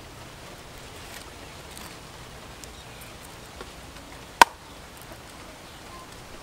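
Knife working on a featherback fish laid on a wooden board: faint light ticks and scraping, then one sharp chop of the blade striking the board about four and a half seconds in.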